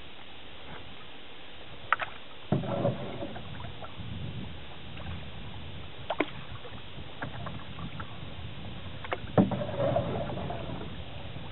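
Canoe paddling on calm water: the swish and swirl of the paddle blade through the water every few seconds, with a few sharp knocks in between.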